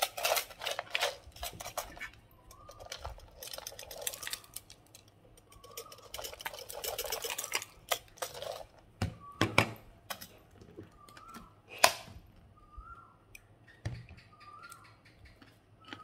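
A spoon clinking and scraping on a ceramic plate, with dry rattling as crispy sambal is shaken out of a glass jar onto rice.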